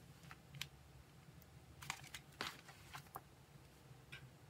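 A few faint, brief rustles and taps of postcards and plastic binder sleeves being handled, against near silence.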